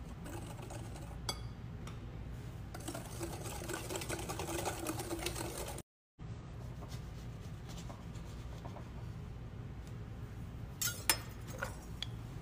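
Wire whisk beating egg batter in a glass bowl: fast, even clicking and scraping of the wires against the glass, heaviest just before the sound cuts out for a moment about six seconds in. Afterwards there is only a steady low hum until a few sharp knocks near the end, as a knife cuts an orange on a wooden board.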